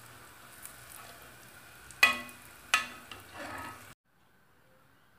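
Flour-coated broccoli deep-frying in hot oil, sizzling steadily, with two loud metallic clinks of a utensil against the pan about two and almost three seconds in, then a smaller clatter. The sound cuts off suddenly about four seconds in.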